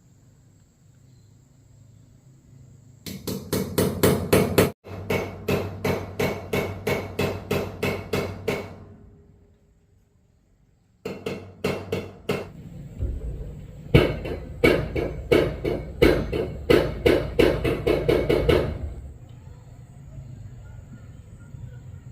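Repeated sharp blows, about three or four a second, in two long runs with a short pause between.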